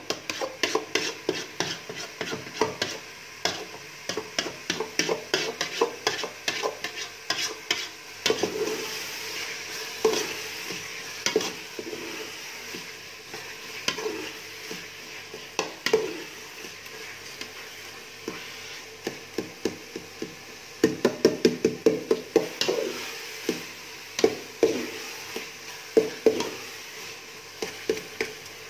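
Steel spoon scraping and knocking against an aluminium pot while stirring thick pumpkin halwa being roasted in ghee, with a soft sizzle underneath. The scrapes come in quick, uneven strokes, with a fast run of knocks about three quarters of the way through.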